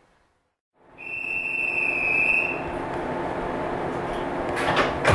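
A JR East 115 series electric train standing at a station: sound starts about a second in with a high steady tone lasting about a second and a half, over the steady hum of the stopped train's equipment, and a few sharp knocks near the end.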